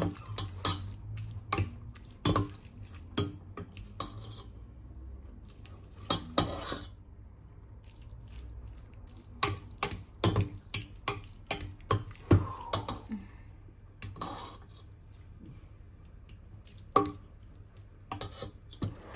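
A plastic pasta server knocking and scraping against a stainless steel pot as cooked spaghetti is tossed to coat it in olive oil. It goes in irregular clicks and clacks with short pauses between bouts.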